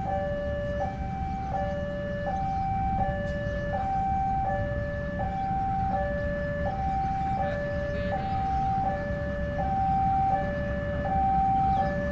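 Railway level-crossing warning alarm sounding a steady two-tone ding-dong, high and low tones alternating about every three-quarters of a second, signalling an approaching train. A low rumble runs underneath.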